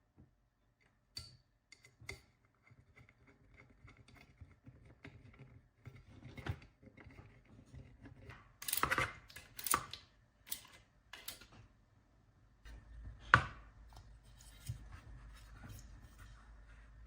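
Hands working with small drone parts and tools on a workbench: scattered clicks, light ticking and short scrapes, with one sharp click, the loudest sound, about two-thirds of the way through.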